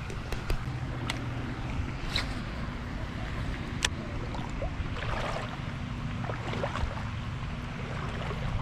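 Wind buffeting the microphone as a steady low rumble, with a handful of sharp light clicks in the first few seconds.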